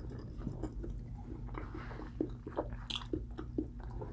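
A man chewing a mouthful of food close to the microphone, heard as a run of short, irregular mouth clicks over a low steady hum.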